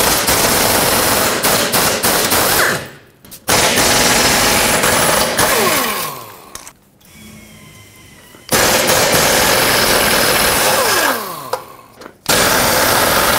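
An impact gun hammers loose the 14 mm bolts of a Toyota Corolla's rear engine mount from the subframe in four long rattling bursts. After each burst the motor's whine falls in pitch as it winds down.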